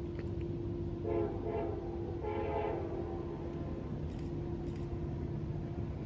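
Diesel locomotive air horn sounding two blasts, a short one about a second in and a longer one just after, over the steady low rumble of a train.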